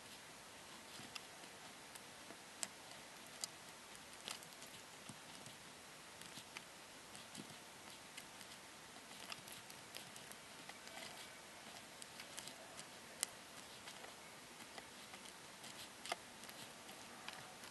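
Faint, quiet handling of a paintbrush and miniature during painting: scattered small irregular clicks and taps over a steady low hiss.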